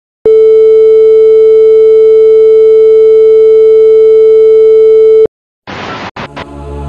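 Loud, steady, mid-pitched colour-bar test tone, held for about five seconds and then cut off abruptly. After a short gap, TV static hiss starts, with a couple of quick breaks in it near the end.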